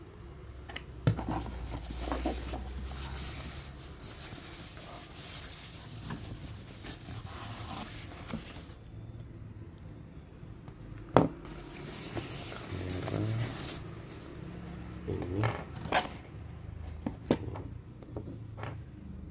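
Dashcam packaging and parts being handled and unwrapped by hand: plastic rustling and scraping, with a few sharp clicks and knocks, the loudest about a second in and about eleven seconds in.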